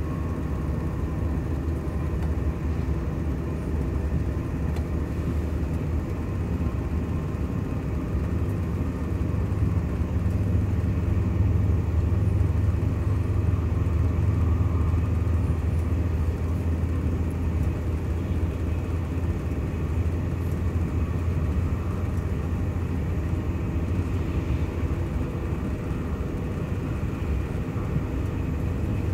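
Interior running noise of a TGV POS high-speed train accelerating through about 160 to 190 km/h: a steady low rumble with fainter higher tones above it, swelling slightly partway through.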